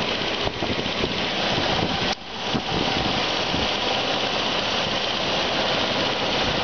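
CNC air plasma cutting machine running: a steady, dense mechanical hiss and hum, dipping briefly about two seconds in.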